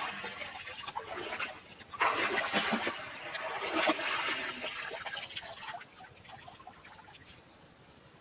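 Water splashing and pouring out of a woven basket as it is scooped through a shallow stream and lifted out, in surges that are loudest from about two to four seconds in. The pouring dies away after about six seconds.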